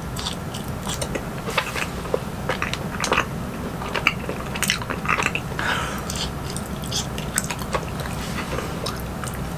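A person biting and chewing a chewy rice cake (tteokbokki) in thick spicy sauce, close to the microphone: irregular short mouth clicks over a steady low hum.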